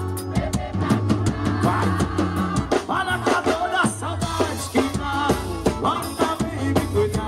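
Live forró music: a man singing into a microphone over a band, with a drum kit beating steadily underneath.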